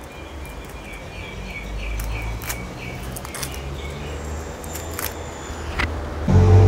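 Fingers working at the foil and wire cage on a sparkling-drink bottle's neck: scattered small clicks and crinkles over a low rumble. A bird chirps a short run of repeated notes in the middle, and near the end a loud, steady, droning sound starts abruptly.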